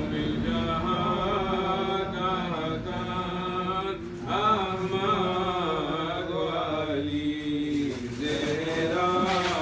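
A solo male voice chanting a munajat qasida, a devotional supplication poem, unaccompanied, in long held melodic lines with a short breath about four seconds in.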